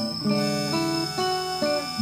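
Background music: acoustic guitar playing a chord progression, the chords changing every half second or so.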